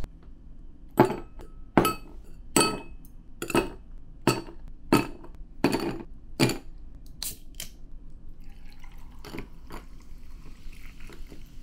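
Ice cubes dropped one at a time from tongs into a glass tumbler: about eight sharp clinks a little under a second apart, then a couple of lighter ones. About three-quarters of the way in, a canned highball is poured over the ice with a soft fizzing hiss.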